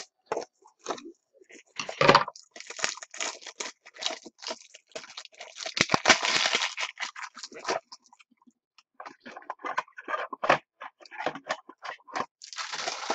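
Crinkling and rustling of plastic card holders and their wrapping being handled, in irregular bursts with clicks and scrapes.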